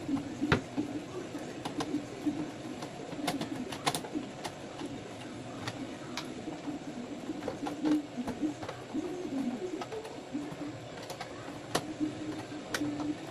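Scattered sharp clicks and taps as cables are handled and pushed into the connectors of a wall-mounted monitor, over a steady low cooing of birds.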